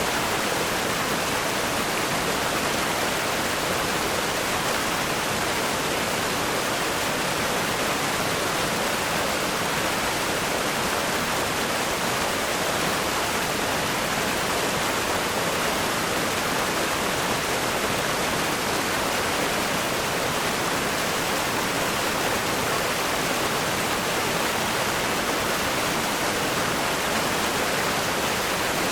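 River rapids rushing over rocks: a steady, dense hiss of fast-flowing water with no change or break.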